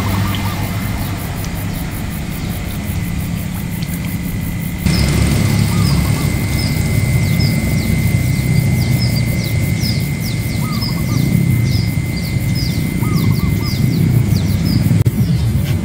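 Steady low rumble with a thin, high, steady whine. About five seconds in, the rumble gets louder and a bird starts repeating short falling chirps, about two a second.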